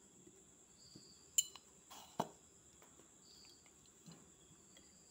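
Insects chirping: a faint, steady high-pitched trill with short chirps every couple of seconds. Two sharp clicks cut through, about one and a half and two seconds in, the first the louder.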